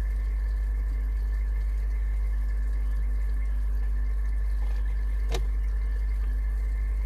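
A steady low hum with faint steady higher tones over it, and one short click about five seconds in.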